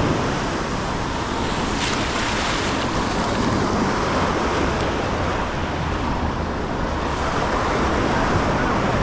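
Ocean surf washing in a steady rush, with wind buffeting the microphone.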